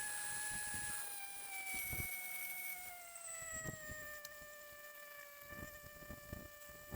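A steady mechanical whine with a clear pitch, sliding down over a few seconds and then holding, with soft low thuds underneath.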